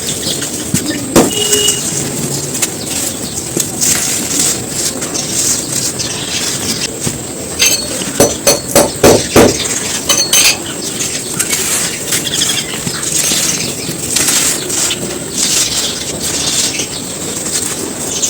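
Dry sand clumps being crumbled, a steady run of crisp crunching and crackling. A burst of louder crunches comes about halfway through.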